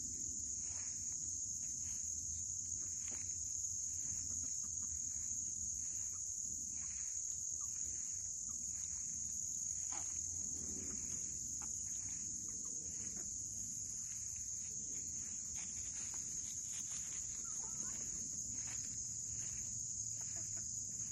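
Steady, high-pitched insect chorus from crickets, with a few faint clucks and rustles from foraging chickens.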